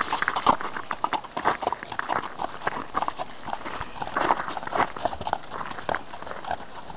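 Horses' hooves on packed snow as they walk and trot: a quick, irregular run of crunching hoofbeats.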